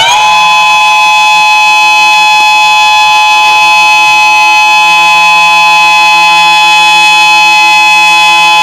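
Emergency alert siren finishing its rise in pitch at the very start, then holding one loud, steady chord of several tones.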